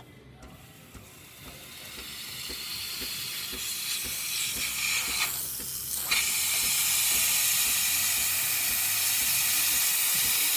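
Breville espresso machine's steam wand opened, hissing steam that builds over the first few seconds, breaks off briefly about halfway, then runs strong and steady: the steam function working again after the leak repair.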